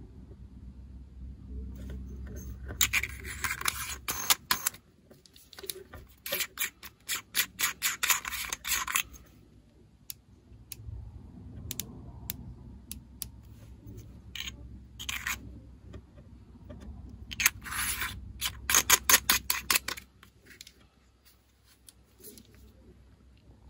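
Handling of an ArmaSight Tango6T rifle scope: bursts of scraping and rapid clicking in three spells, with single clicks between them.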